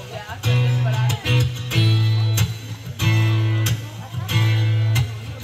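Acoustic guitar strumming chords as the instrumental intro to a song, in phrases of about a second with short gaps between them.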